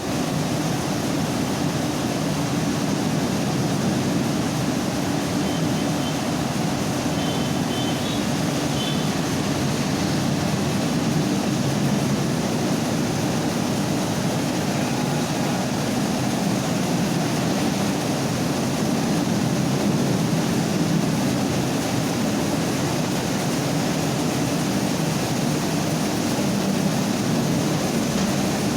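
Mini rice milling machine running steadily, a constant mechanical rumble with no change in speed. A few faint high chirps come about six to nine seconds in.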